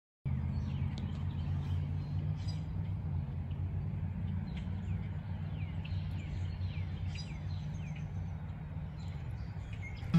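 Outdoor ambience: small birds chirping, many short falling notes, over a steady low rumble.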